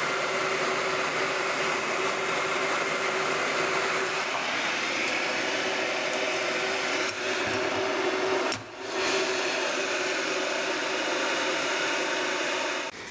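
Hot air gun blowing steadily with a faint constant hum, heating a new roller bearing so it expands enough to drop onto a transmission pinion shaft. The sound drops out briefly about eight and a half seconds in.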